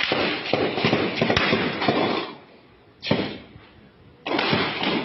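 Gunfire: a rapid run of shots for about two seconds, a single shot about three seconds in that dies away, and another burst near the end.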